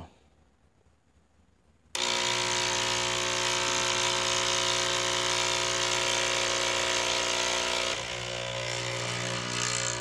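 Belmoca capsule coffee machine brewing a double espresso: after about two seconds of quiet its pump starts suddenly and runs with a steady hum, pushing water through the capsule. It eases slightly about eight seconds in.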